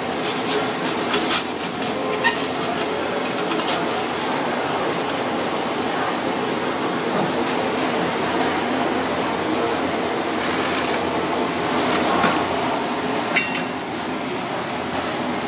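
Busy kitchen ambience: a steady hum and murmur with a few sharp metallic clicks and clinks as a spatula works the grilled fish off the wire grill rack.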